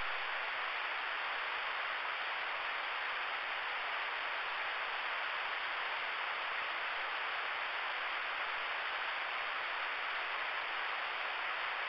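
Steady hiss of radio static from an RCI-2990 ten-meter receiver with no signal coming in: the open-channel band noise heard once the transmitting station has unkeyed.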